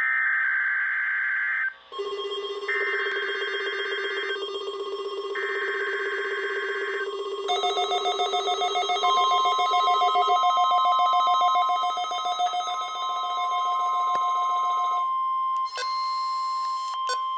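NOAA Weather Radio Specific Area Message Encoding (SAME) test signal: three screeching digital data bursts, then a long steady 1050 Hz warning alarm tone. A second, pulsing electronic alert tone sounds alongside from about two seconds in until about fifteen seconds in, and a few short chirps come near the end.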